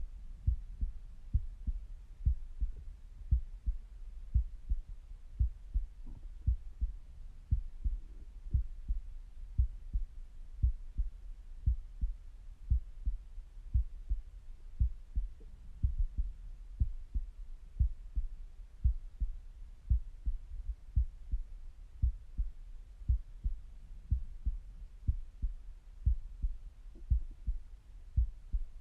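A resting human heartbeat heard through a stethoscope: steady low lub-dub thumps in close pairs, repeating regularly.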